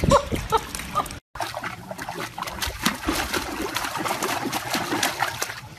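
A puppy giving a few short, high whimpers while paddling in a pool, then water splashing and sloshing as a dog dunks its head into the pool from the edge.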